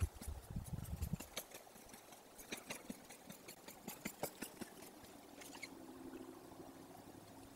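A wolf chewing on a carcass, with irregular crunching clicks and cracks of meat and bone. A faint steady low hum comes in after about five and a half seconds.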